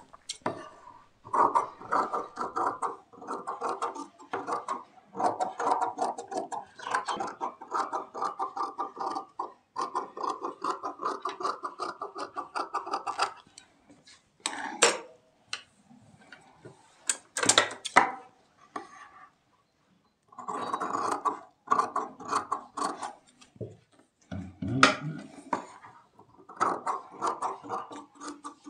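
Industrial single-needle sewing machine stitching in short runs of a few seconds each, with pauses between them, and a few sharp separate clicks around the middle.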